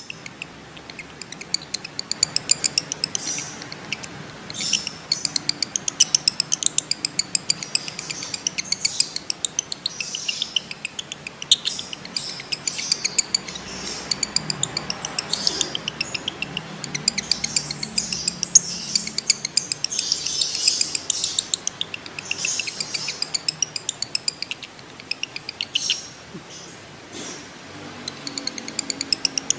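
Male lovebird in breeding condition chattering in long, rapid strings of sharp high chirps: the 'ngekek' trill used as a training call to set other lovebirds off. It breaks off briefly near the end, then starts again.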